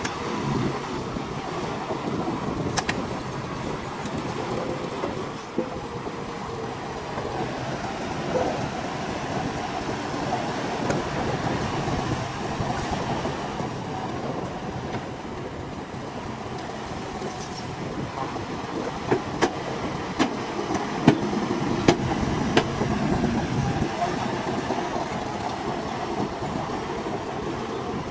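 Shantui DH17C2 crawler bulldozer working, its diesel engine running steadily under load. Several sharp knocks come in the last third.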